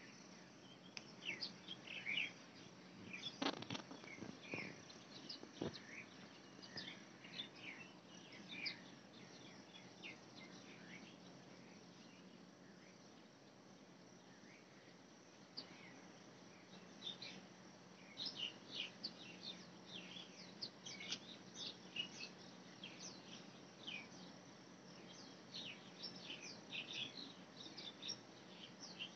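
Small birds chirping in short, irregular high notes, thinning out for a few seconds in the middle, over a faint steady hum. A few soft knocks come a few seconds in.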